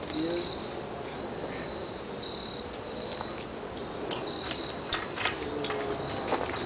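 Crickets trilling steadily in a high, even tone, with scattered light clicks in the second half.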